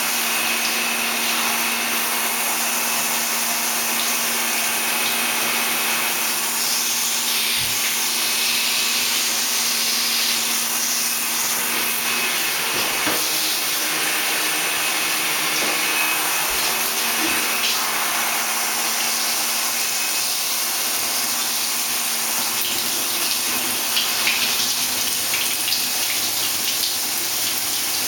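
Shower water spraying with a steady hiss, splashing over a wet cat and into a plastic bathtub.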